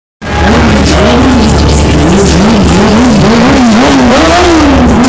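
Sportbike engine revved hard and repeatedly during stunt riding, its pitch rising and falling about twice a second as the throttle is blipped.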